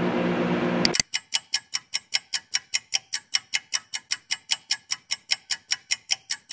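A steady low hum, the microwave oven running, lasts about a second and then cuts off abruptly. A fast, even clock ticking takes over, about five ticks a second, clean and dry like an added clock-tick effect marking the wait.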